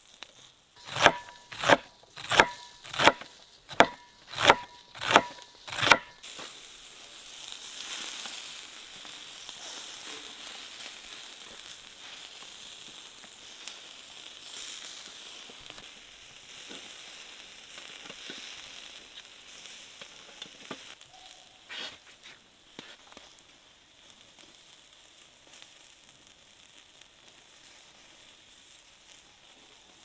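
About eight sharp knocks with a metallic ring come in quick succession over the first few seconds. They are followed by a steady sizzle of food cooking over the fire, which slowly grows fainter.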